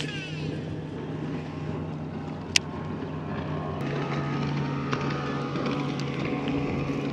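Electric bow-mount trolling motor humming steadily, stepping up in level about four seconds in as its speed is raised. A single sharp click comes about two and a half seconds in.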